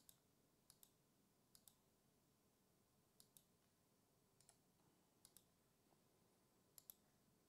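Very faint computer mouse clicks, mostly quick press-and-release pairs, about five of them a second or two apart: repeated clicks of a web page's Randomize button.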